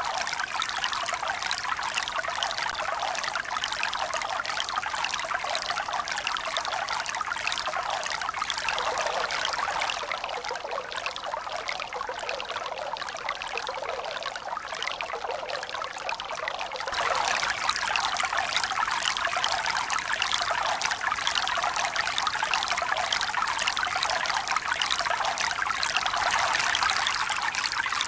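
Running water making a steady, hissing rush with no low rumble and no swells. It turns slightly quieter and duller about nine seconds in, then jumps back louder about seventeen seconds in.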